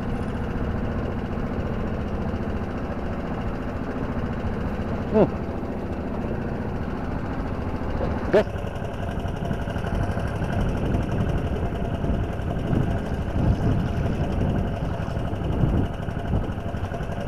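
Small boat engine running steadily at low speed. Two brief sounds falling in pitch stand out about five and eight seconds in.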